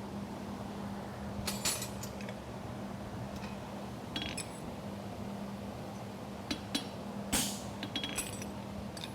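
Scattered light metallic clinks and taps of a hammer and tools on a steel horseshoe and anvil, some briefly ringing, about eight in all, the loudest near the end. A steady low hum runs underneath.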